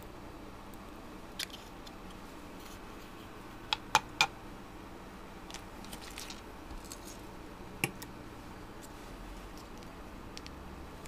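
Sharp clicks from long-nose pliers and plastic kit parts as a small metal pin is worked into a plastic gearbox housing: a quick cluster of three about four seconds in, with single clicks before and after, over a faint steady room hum.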